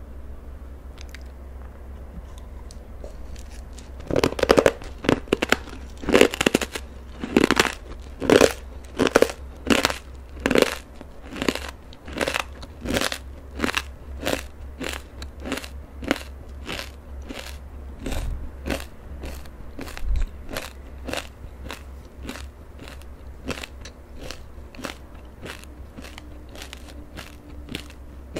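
Crunchy fried puffed-corn snack (Batdureong) being chewed close to the microphone: a steady run of crisp crunches, roughly two a second, starting about four seconds in, loudest at first and growing softer.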